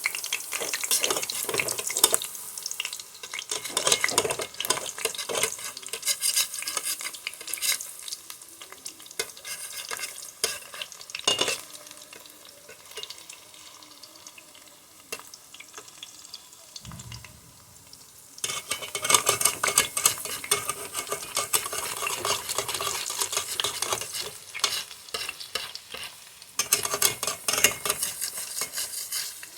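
Plantain fritters (kaakro) frying in hot oil in a frying pan: a dense sizzle full of sharp pops and crackles. It softens for several seconds around the middle, then grows loud again.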